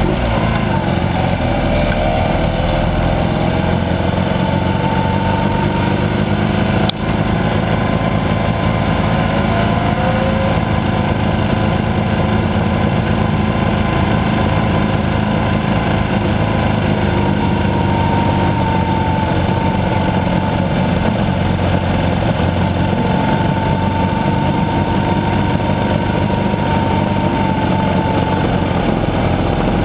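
Classic BMW motorcycle engine running under way, heard close up from the bike itself. The revs fall and rise a little in the first half, then hold fairly steady.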